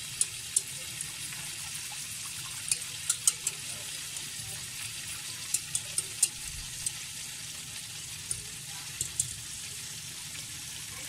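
A whisk stirring gravy as it simmers and reduces in a pot: a steady hiss with scattered sharp clicks.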